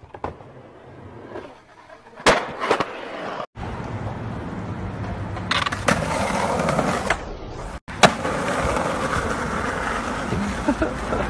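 Skateboard: two sharp board impacts a little over two seconds in, then wheels rolling steadily over pavement, with another sharp clack of the board about eight seconds in.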